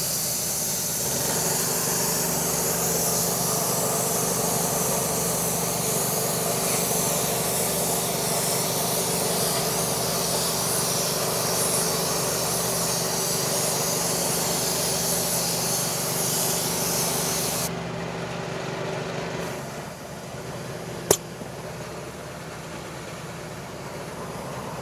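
Paint spray gun hissing steadily as dark hyper paint is sprayed onto an alloy wheel, over a steady motor hum. The spraying stops about 18 seconds in, the hum stops a second or two later, and one sharp click follows.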